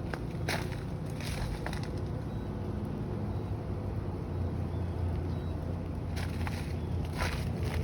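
A few crunching footsteps on snow and ice near the start and again near the end, over a steady low rumble.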